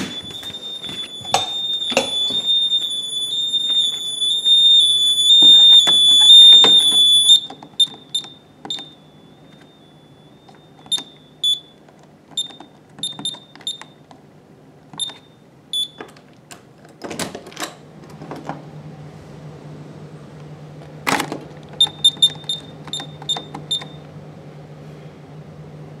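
Honeywell Vista alarm keypad's built-in sounder giving a steady high alarm tone that grows louder, then cuts off about seven seconds in as the code is entered. Single short key-press beeps follow, with a couple of knocks from handling the keypad and a quick run of beeps near the end.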